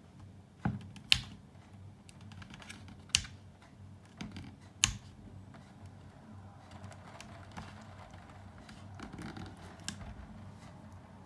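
Small plastic and metal parts of an amplifier being handled and pried apart: a few sharp clicks and taps in the first five seconds, then softer scraping and rustling with one more click near the end.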